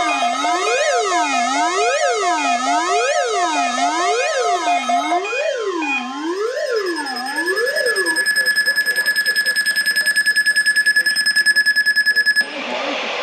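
Electronic emergency-alert alarm sounding for the National Weather Service required weekly test. It starts as a siren-like tone sweeping up and down about once a second, with a steady tone above it. About six or seven seconds in it changes to a steady high tone that pulses fast, then cuts off suddenly near the end and leaves a hiss.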